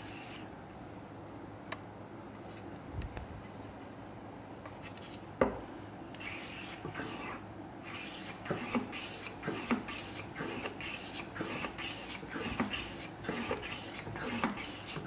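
Hand plane set to a coarse cut, shaving the edge of an ash stool part into a chamfer. It starts quietly, with a single knock about five seconds in, then rasping planing strokes come about once a second.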